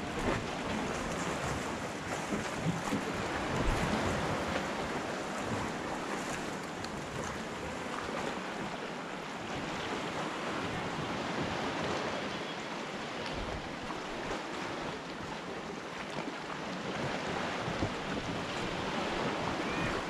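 Small waves lapping and washing against shoreline rocks, a steady rush of water noise.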